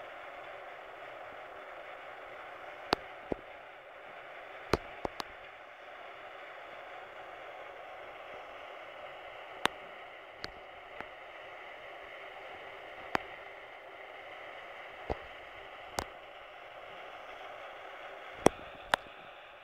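A steady faint hiss with about a dozen sharp clicks scattered through it.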